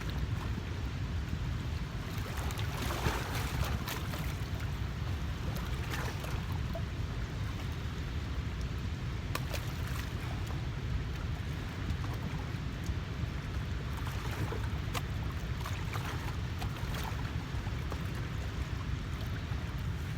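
Steady low rumble of wind buffeting the microphone, with a few faint clicks scattered through it.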